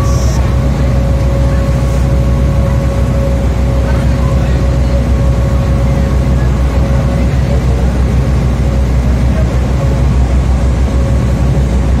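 Passenger ferry's diesel engine running steadily with a deep drone, a thin steady whine above it, over the rush of the churning wake.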